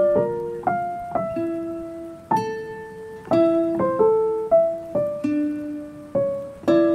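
Background music: a slow melody of single piano notes, each struck and fading away.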